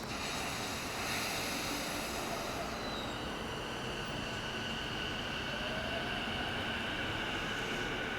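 E233-series electric train moving at the station, a steady hiss of running noise with high, steady whining tones setting in about three seconds in and a brief rising tone a couple of seconds later.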